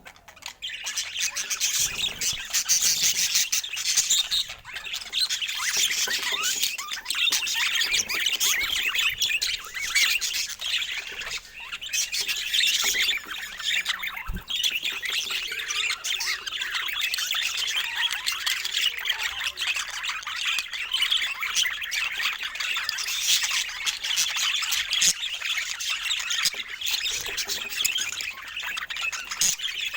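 Budgerigars chattering: a dense, unbroken stream of quick high chirps, warbles and squawks, several birds calling over one another.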